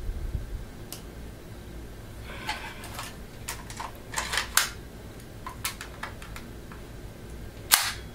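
Plastic clicks and rattles of a Crosman C11 CO2 pistol and its magazine being handled, with scattered small clicks and one loud, sharp click near the end.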